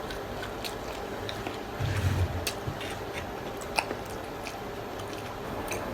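Close-miked chewing of tacos: wet chewing with scattered small crunches and mouth clicks, and a brief low hum about two seconds in.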